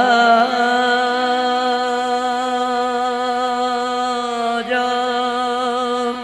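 Qawwali singing: the lead singer's voice holds one long note with a slight wobble over a steady harmonium drone, breaks off about four and a half seconds in, and takes up a new held note.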